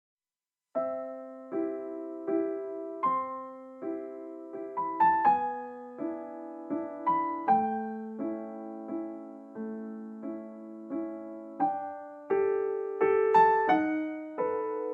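Background piano music: a slow, gentle melody of struck notes and chords, starting a moment in.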